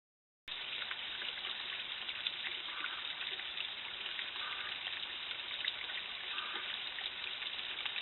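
Steady hiss of outdoor background sound picked up by a trail camera's built-in microphone, dull and thin with nothing above the upper mid range. It cuts in suddenly about half a second in, after dead silence.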